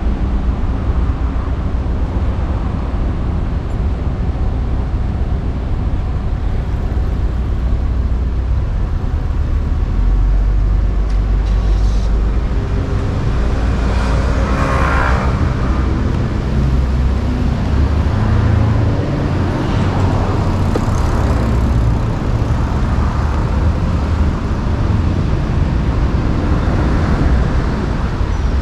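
Steady road traffic with a continuous rumble of passing cars, and one vehicle passing louder about halfway through.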